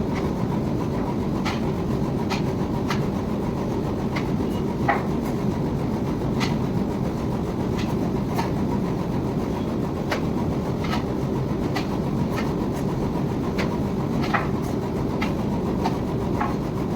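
Wire-drawing machine running steadily with a dense mechanical rumble, punctuated by irregular sharp ticks and clacks roughly every half second to a second.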